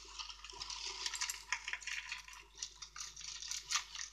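Small irregular clinks and scrapes of kitchenware, like a spoon and dishes being handled during breakfast preparation.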